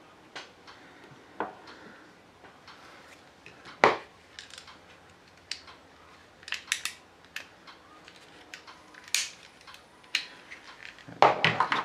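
Scattered small clicks and taps of the metal and plastic parts of a Crosman 357 pellet pistol being handled and set down on a wooden table, with one sharp knock about four seconds in and a quick run of clicks near the end.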